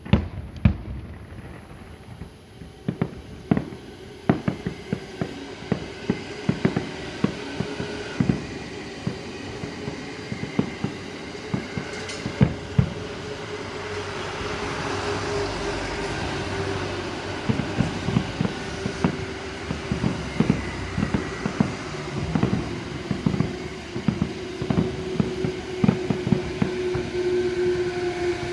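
Fireworks display: a rapid, irregular string of bangs and crackles from shells bursting, over a steady hum.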